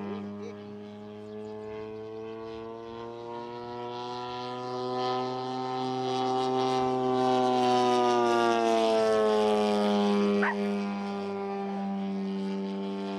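Engine and propeller of a large scale RC Sea Fury warbird model droning steadily as it flies by overhead. It grows louder and slightly higher in pitch as it approaches, then drops in pitch and level about ten seconds in as it passes.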